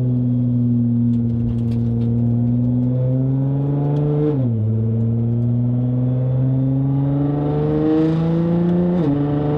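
Nissan GT-R's twin-turbo V6 with an aftermarket MH Pipes exhaust, heard from inside the car while accelerating. The engine note rises steadily and drops sharply at two upshifts, about halfway through and near the end.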